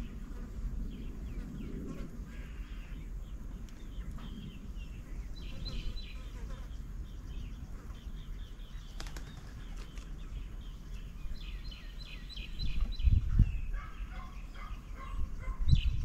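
Small birds chirping in quick runs of short notes throughout. A spotted dove's wings flap in loud low flutters about thirteen seconds in and again near the end as it lands.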